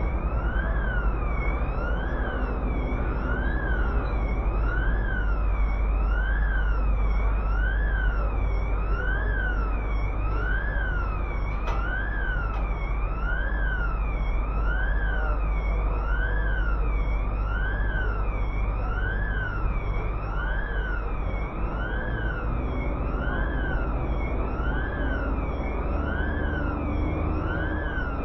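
Emergency vehicle siren wailing steadily, its pitch rising and falling about once every second and a half, over a continuous low street rumble.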